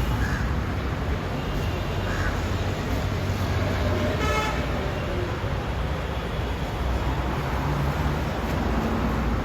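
Road traffic running steadily, with a short vehicle horn toot about four seconds in.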